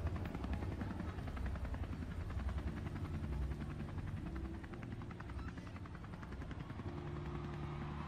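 Helicopter rotor sound effect played over the arena PA: a fast, even chopping with a steady low hum underneath.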